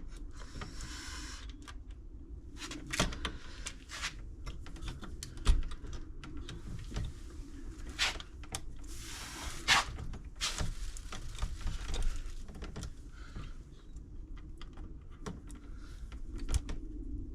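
Scattered clicks, taps and brief scrapes of hands and tools working stiff heavy-gauge wires into an electrical box, over a low steady hum.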